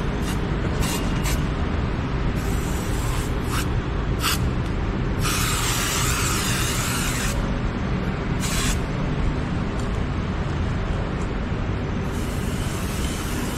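An aerosol spray-paint can hissing as it repaints a motorcycle exhaust pipe and muffler. There are several short sprays and one longer spray of about two seconds near the middle. A steady low rumble runs underneath.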